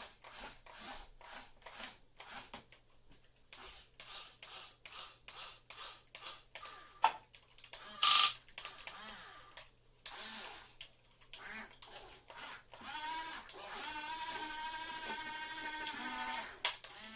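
Small electric motors of a 1/14-scale Top Race RC excavator whirring in many short bursts as its controls are worked. A single sharp, loud clack comes about eight seconds in, and a longer steady whine runs from about thirteen seconds until just before the end.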